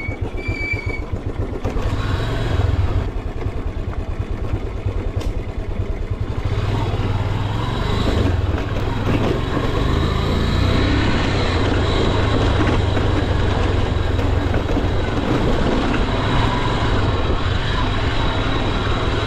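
An engine running steadily with a fast low throb, growing a little louder about two seconds in.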